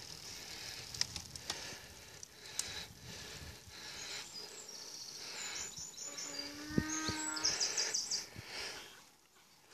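A cow mooing once, about six seconds in, for over a second, over steady wind noise. Short, quick, high-pitched pulsed calls come just before and after it.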